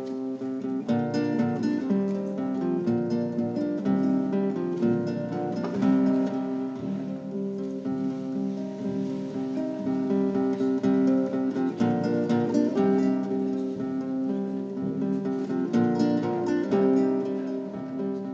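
Strummed plucked-string instruments playing a steady chordal accompaniment, as for a traditional Conchero chant.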